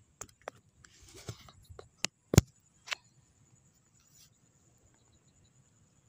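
Handling noise from the hunter's gear: a few sharp clicks and knocks with a short rustle, the loudest knock about two and a half seconds in.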